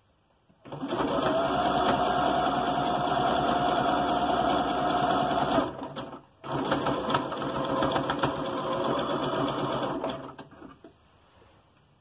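Electric domestic sewing machine stitching a seam: a steady motor hum with rapid needle clatter. It starts under a second in, stops briefly around the middle, runs again, and stops a little before the end.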